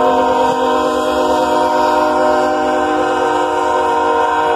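Diesel locomotive's multi-chime air horn held in one long, loud, steady chord as the locomotive passes close by, sounded for the grade crossing, cutting off abruptly at the end over the low rumble of the train.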